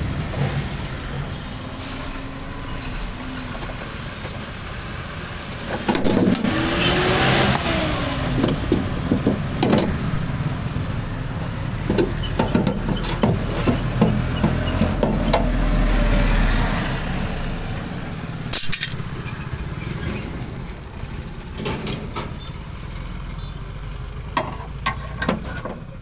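Motor vehicle engines running in the street, one revving up and falling back about six seconds in, with another low engine rumble swelling later. Scattered sharp clicks and knocks come from hand tools working on a car door's bare metal inner panel.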